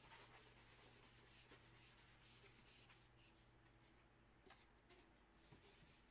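Near silence: room tone with faint rubbing and rustling, as of items being handled, and a few soft clicks.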